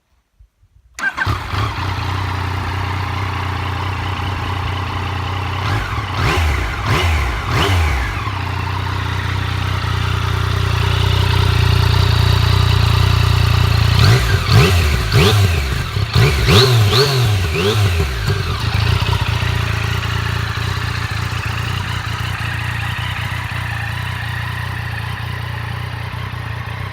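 Yamaha MT-09's 847 cc inline three-cylinder engine starting about a second in and idling, then revved in a few quick blips and, past halfway, in a longer run of blips, before settling back to a steady idle.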